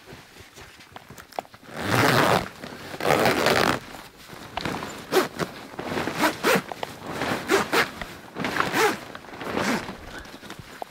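Zipper on the canvas wall of an ARB awning room being pulled along: two long zips about two and three seconds in, then a string of short, jerky zipping strokes.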